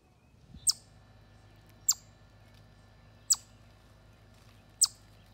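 Chipmunk giving short, sharp, high-pitched chip calls, four of them evenly spaced about a second and a half apart, each dropping quickly in pitch.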